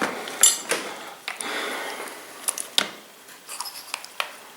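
Small metal parts and tools clinking and clicking during chainsaw disassembly, with a brief scrape: a sharp ringing clink about half a second in, then a few more clicks.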